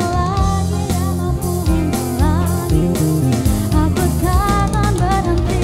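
A band playing a pop song: a singing voice over guitar and drums.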